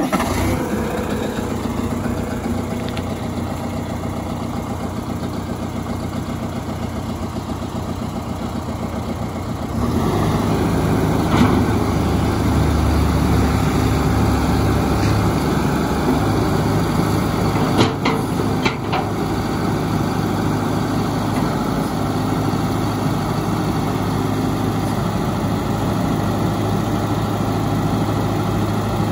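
John Deere 5100M tractor's four-cylinder diesel idling just after starting. About ten seconds in it speeds up and runs steadily louder while the front loader is raised and lowered, with a few knocks near the middle.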